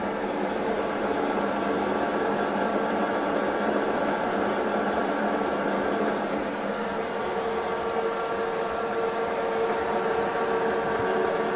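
BV20L bench lathe running steadily, its spindle drive and gearing giving a steady hum with a constant whine, as the tool takes a slow automatic facing cut across a metal flange under electronic lead-screw feed.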